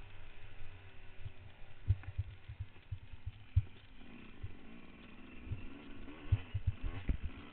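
Trail motorcycle engine running with its pitch rising and falling, louder from about four seconds in, over irregular low thumps.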